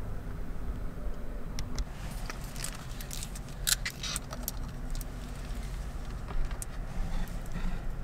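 Steady low rumble of a car, with a cluster of light jingling clicks from about two to five seconds in and a few more near the end.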